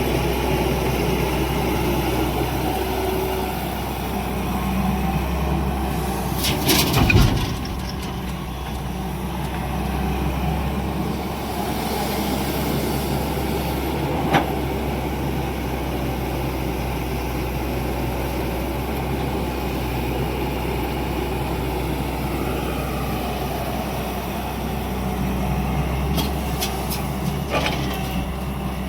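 Diesel engine of an excavator running steadily with a deep drone, broken by a few sharp knocks: a cluster about seven seconds in, one at about fourteen seconds, and a few more near the end.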